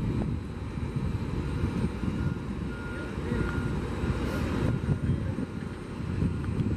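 Distant jet engines of a Boeing 747-400 freighter on final approach, heard as a steady low rumble.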